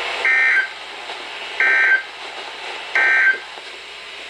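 Three short screeching bursts of Emergency Alert System (SAME) digital data tones, about a third of a second each and a second apart, over faint radio hiss: the end-of-message code that closes the tornado warning just read.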